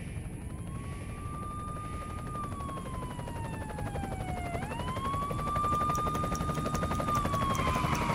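A siren wailing, rising quickly, holding, then falling slowly, about every four and a half seconds, over the low, rapid throb of a helicopter's rotors; both grow louder, as if closing in.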